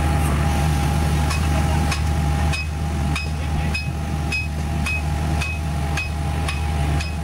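Hammer striking the steel pin mount of a Hitachi excavator's boom hydraulic cylinder: a few blows at first, then a steady run of about two strikes a second, each a short metallic clang with a ringing tone. A low engine hum runs steadily underneath.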